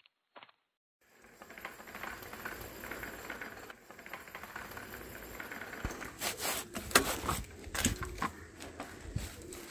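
Bicycles ridden over a dry dirt yard, starting about a second in: a steady crunching hiss from the tyres. From about six seconds come sharper knocks, rattles and crunches of dry leaves as the bikes are stopped and handled.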